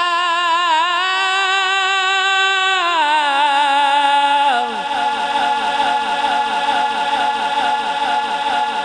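A Quran reciter's unaccompanied voice stretching one melodic vowel with vibrato. The pitch steps down about three seconds in and again halfway through, then it wavers in a quick, even trill.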